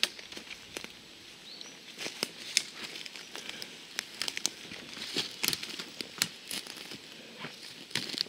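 Footsteps through dry forest undergrowth: twigs and dead branches crackling and snapping underfoot in an irregular run of sharp cracks, with brush rustling past.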